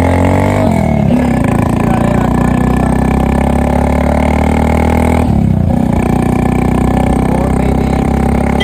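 Vehicle engine running loud and steady, its pitch dropping briefly twice: about half a second in and again just past the five-second mark.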